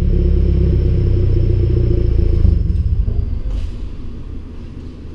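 Scion FR-S flat-four engine running at idle through a Cherry Bomb aftermarket exhaust, a deep steady rumble. About halfway through the rumble loses its steady note and fades, getting much quieter toward the end.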